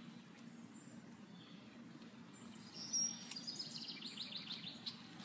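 A small bird singing a quick trill of short, high, falling notes, starting about three seconds in, against a faint background.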